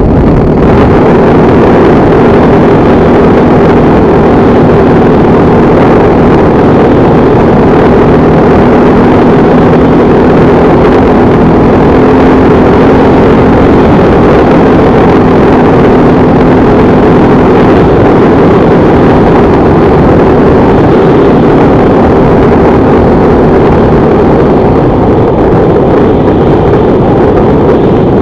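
Motorcycle engine running at a fairly steady pitch while riding, very loud.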